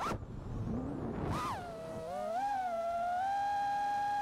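FPV freestyle quadcopter's motors and propellers whining, heard from the camera on the quad. About a second in, the whine drops away and leaves a rush of air. It comes back with a quick rise in pitch and then holds a steady, higher whine.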